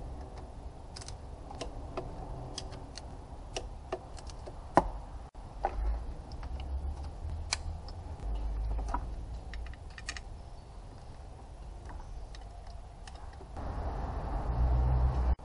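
Hand tools and small metal parts clicking and tapping during hand work in an engine bay: irregular light clicks, one sharper knock about five seconds in, and a duller rumble of handling near the end.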